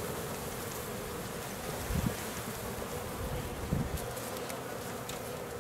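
Thousands of honey bees from a package buzzing in a steady hum as they are poured into an empty hive. Two low thumps, about two seconds in and near four seconds.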